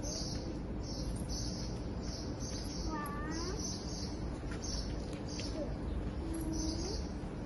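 Small birds chirping repeatedly in short high-pitched bursts over a low, steady hum of outdoor background noise.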